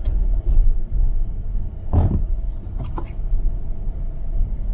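Steady low rumble of a car driving on a slushy, snowy road, heard from inside the cabin. About two seconds in there is a short thump, and two brief knocks follow about a second later.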